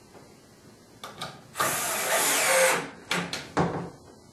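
Power drill driving a screw into a wooden chair slat, running for just over a second, with a few clicks and knocks from handling the slat and tool before and after.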